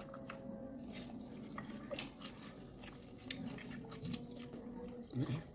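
A person chewing and biting fried food and rice eaten by hand, with faint scattered small clicks and crunches.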